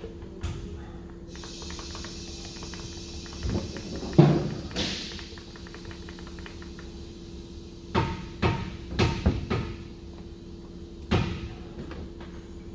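Scattered knocks and clicks of hands working in a car's engine bay during an oil change, the loudest about four seconds in and a quick run of them around eight to ten seconds, over a steady low hum.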